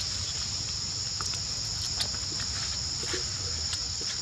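Steady, high-pitched drone of insects (cicadas or crickets) in forest, with a few faint clicks and rustles.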